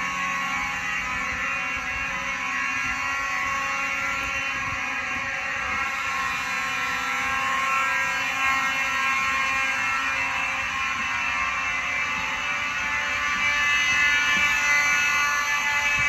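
Simplex 2901-9838 fire alarm horns sounding continuously through the school halls in a system test, a little louder near the end.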